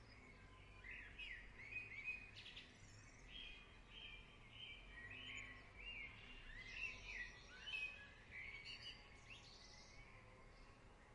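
Faint birdsong: many short chirps and quick rising and falling whistles, overlapping one another, over a steady faint background noise.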